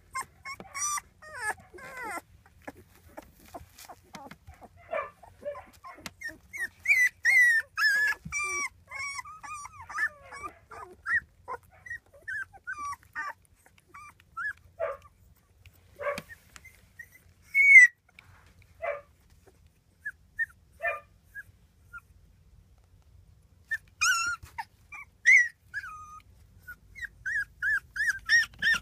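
17-day-old rough collie puppies crying in many short, high-pitched squeaks, some sliding up or down in pitch, in bunches with quieter gaps between.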